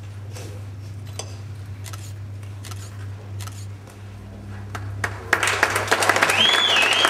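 Hand clapping breaks out about five seconds in and carries on loudly, after a quieter stretch of faint taps over a steady low hum. A high, wavering call rises and falls above the clapping near the end.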